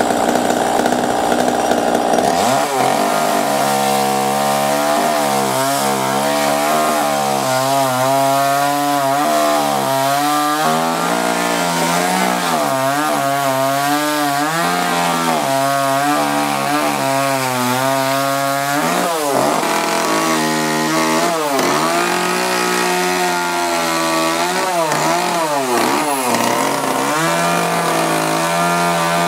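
Petrol chainsaw carving into a standing wooden log. The engine runs continuously, its pitch rising and falling as the bar bites into the wood and is eased off, with a high steady whine at the start and deeper dips in pitch in the later part.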